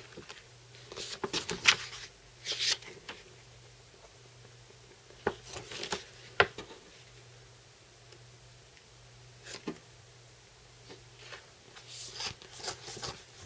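Large, thick paper pages of a model-kit instruction manual being turned and handled: short spells of paper rustling and flapping, with quiet pauses between.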